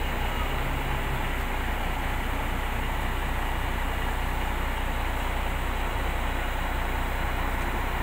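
Diesel engine of a Creavo 500 rough-terrain crane running at a steady speed: a continuous low drone with a steady hiss over it.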